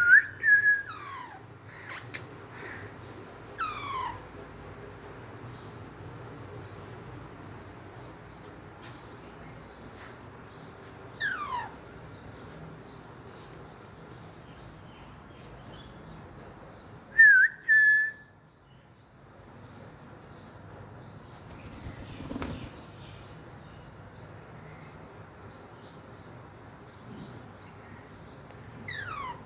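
Pet green parakeet giving short sharp whistles and several falling whistled calls, with long quiet gaps between them. A faint high chirp repeats about twice a second in the background.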